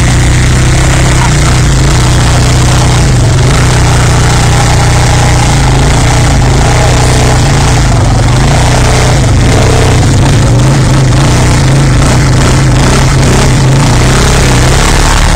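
Quad bike (ATV) engines idling close by, a loud, steady drone with little change in pitch.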